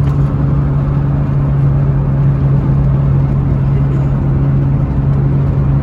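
Car driving at a steady speed: a constant engine drone with road rumble and noise, loud and unchanging.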